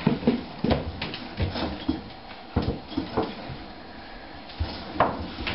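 Stainless steel dog bowls being handled and set down on a wooden floor: a string of separate metal clinks and knocks, irregularly spaced about half a second to a second apart.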